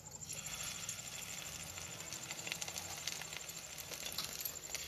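Fish-roe fritter batter frying in hot oil in a kadai: a steady crackling sizzle that starts just after the batter goes in.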